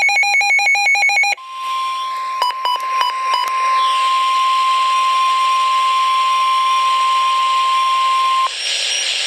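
NOAA Weather Radio emergency alert: the end of the warbling digital SAME header burst, then the steady 1050 Hz warning alarm tone for about seven seconds, with four short beeps over it near its start. The tone cuts off near the end, leaving radio hiss.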